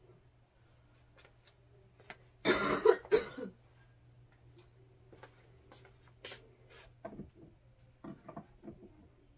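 A person coughing, two rough coughs in quick succession. Around them are light clicks and knocks of small items being handled and set down on a shelf.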